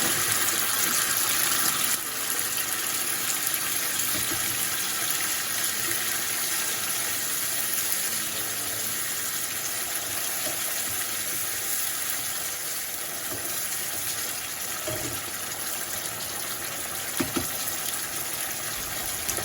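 Tomato sauce sizzling in a frying pan of hot oil and browned garlic: a steady hiss that drops a little about two seconds in. A couple of light knocks near the end.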